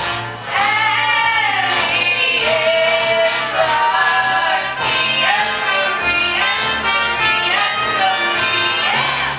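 Stage musical number: voices singing a show tune over instrumental accompaniment with a walking bass line, the singing rising and falling in pitch and briefly dipping just after the start.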